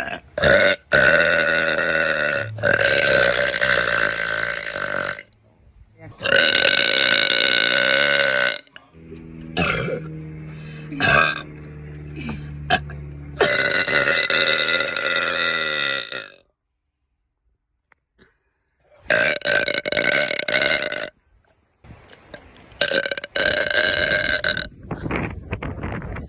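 A person belching a string of long, loud burps, about six in a row, each lasting a few seconds, with one deeper, steadier burp in the middle and a short silent pause about two-thirds of the way through.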